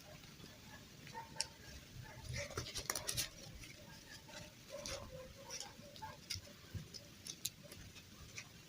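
Light, scattered clicks and taps of small plastic pieces being handled, with a cluster of quick clicks about three seconds in.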